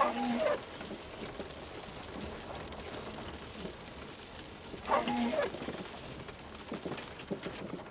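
Footsteps on a trail, with two short squeaks about five seconds apart.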